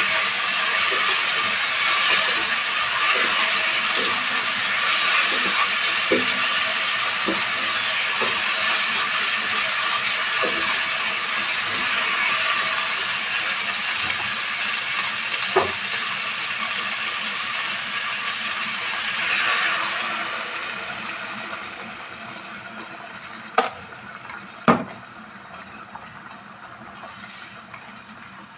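Chicken pieces and onion sizzling in oil in a nonstick pot, with a silicone spatula lightly knocking and scraping as they are stirred. About two-thirds through, the sizzle dies down to a much quieter bubbling as water goes into the pot, and two sharp knocks come near the end.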